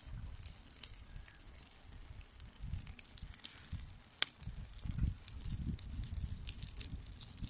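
Wood fire crackling inside a folding steel camp stove as the flames build. There are scattered small pops, one sharp loud pop about four seconds in, and a low rumble that swells and fades.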